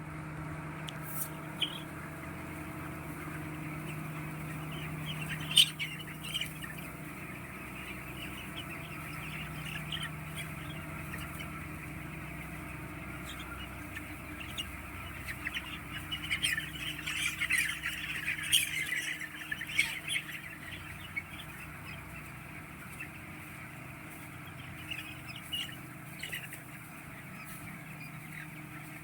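A flock of chickens in a poultry house, many birds calling and chattering at once, busiest in the middle. Underneath runs a steady low hum.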